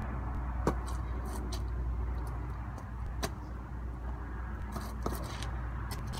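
A football slapping into hands as it is caught and tossed, three sharp slaps over a steady low rumble.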